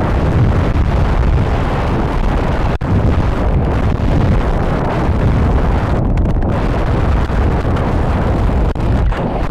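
Loud, steady wind rushing and buffeting over the microphone of a camera riding on a descending high-power rocket, with the deployed recovery harness and fabric streaming in the airflow. There is one brief click about three seconds in.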